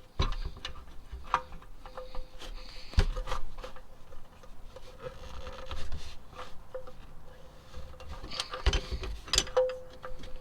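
Oil filter wrench scraping and clicking against the oil filter housing as it is fitted and turned to loosen the filter: scattered metallic clicks and short rubbing scrapes, with a couple of louder knocks.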